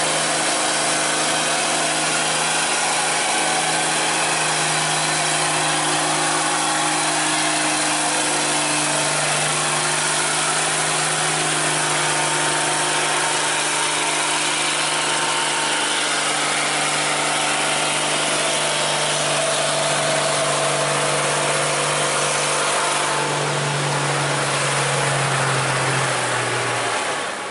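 Diesel engine of a heavy tanker truck working hard as it pulls slowly past: a steady drone that rises slightly in pitch near the end.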